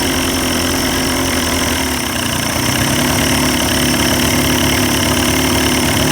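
1990s 30 hp Evinrude two-stroke outboard motor running steadily at idle, picking up slightly about two seconds in. It is running again after water was purged from its carburetor, the water traced to a bad fuel tank.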